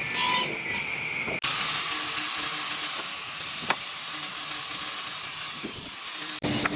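Steady workshop hiss, with abrupt cuts between clips about a second and a half in and again near the end.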